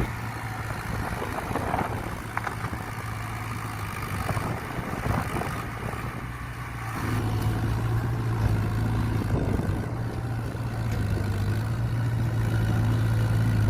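Excavator's diesel engine running steadily at a low hum, growing louder about halfway through.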